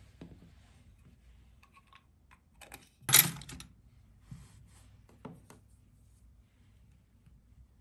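Stainless-steel nail tools clinking and rattling in a plastic sterilizer tray, with a sharp clatter about three seconds in, then a few lighter single clicks as cuticle nippers are set down on a towel.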